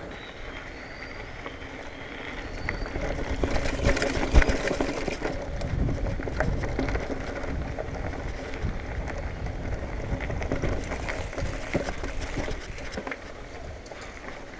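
2019 Marin Bobcat Trail 5 hardtail mountain bike being ridden, tyres rolling with the bike rattling and clicking over the ground. It grows louder and rougher a few seconds in as it runs on the dirt trail, with one hard knock about four seconds in.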